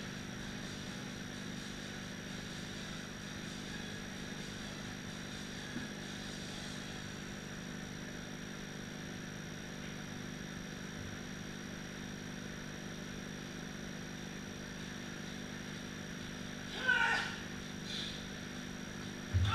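Steady hum of room background noise with no clear activity. Near the end comes a short shout, then a thump with a voice.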